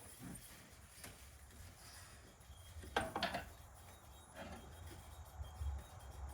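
A few light knocks and clinks, about a second in and twice around three seconds in, from a greenhouse door and its hinge hardware being handled and adjusted. A low rumble lies underneath.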